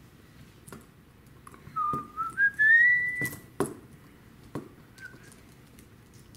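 A person whistling one note that rises in small steps for about a second and a half, then a brief second whistled note. Between them come a few sharp light clicks of a small metal tool pressing on a steel link bracelet.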